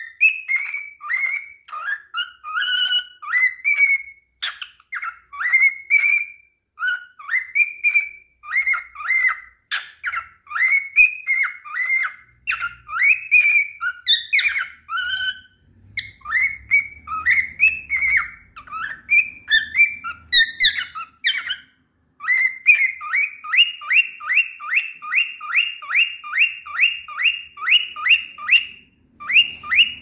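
Grey cockatiel singing a whistled, warbling song of short rising and falling notes. For the last seven seconds or so it switches to a fast, even run of repeated rising chirps, about three a second.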